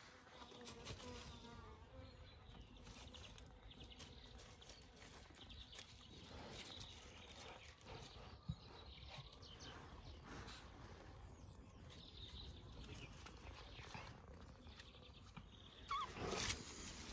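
Bees buzzing faintly around flowering winter clematis and hellebores, with a louder rustle near the end.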